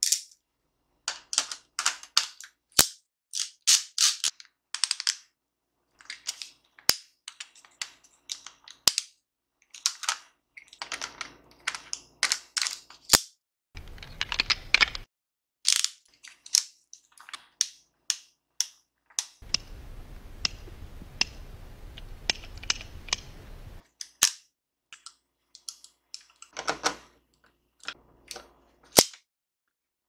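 Nikomat FTN 35 mm film SLR being worked by hand: a string of sharp mechanical clicks, snaps and short ratchets from its controls, lens mount and aperture ring. Two stretches of steady rasping noise come in, a short one about 14 seconds in and a longer one from about 19 to 24 seconds in.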